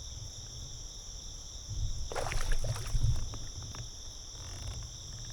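Steady high chorus of insects, such as crickets or katydids, holding two unbroken high tones, over a low rumble. About two seconds in there is a brief cluster of sharp clattering and splashing strokes that lasts about a second.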